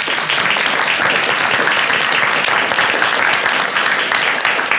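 Audience applauding: dense, loud clapping from many hands.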